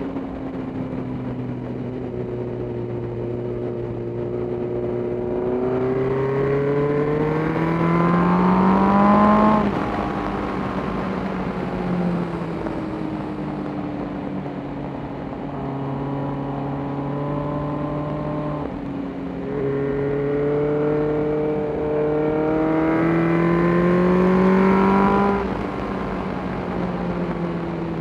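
Suzuki GSX-R sport bike's inline-four engine under way, with wind and road rush. The engine note climbs twice as the bike accelerates, about a third of the way in and again near the end, and each time drops suddenly.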